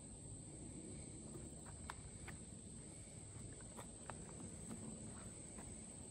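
Faint outdoor ambience: a steady high-pitched insect drone over a low rumble, with a few soft scattered clicks.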